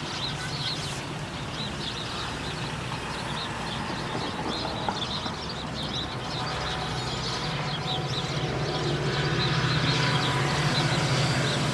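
A train passing the railroad crossing, a low steady rumble that grows louder toward the end, with quick high chirps repeating throughout.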